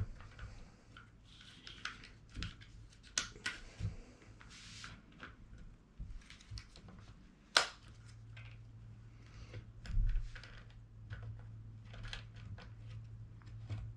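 Hand-handling clicks, taps and scrapes of metal parts as an airsoft sniper rifle's cylinder assembly is worked back into its aluminium chassis and a retaining pin pushed home, with a sharp click about halfway through and a low thump around ten seconds in.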